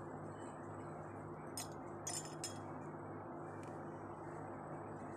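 Ice cubes clinking against drinking glasses, a few light clinks about two seconds in, over a steady low hum.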